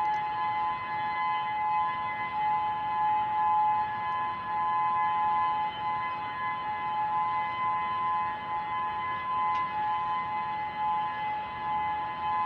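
Outdoor civil-defense warning siren sounding a steady two-note tone, its loudness swelling and dipping slightly, during a scheduled siren test.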